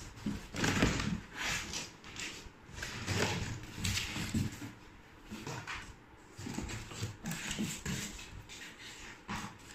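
Mixer grinder parts and their packaging being handled while unboxing: irregular rubbing and rustling with a few soft knocks.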